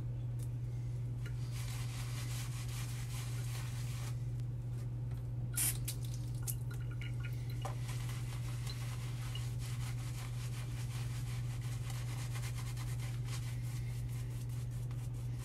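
Razor scraping through shaving lather and two to three days' stubble, a dense rasping texture of repeated strokes, over a steady low hum. One sharp click a little over five seconds in.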